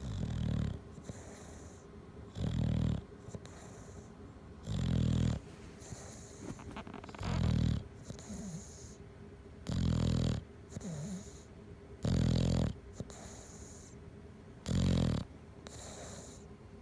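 Bulldog snoring: a loud, low snore roughly every two and a half seconds, seven in all, with a faint whistle between some of them.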